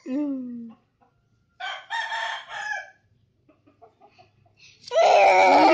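A rooster crowing, one long loud call starting about five seconds in, after a shorter rough call about two seconds in.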